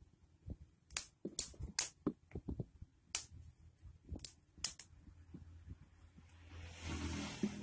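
Sharp plastic clicks and snaps as the Oppo 3001's white plastic frame is handled and pressed onto the phone, several single clicks spaced irregularly, then a short scraping rustle near the end.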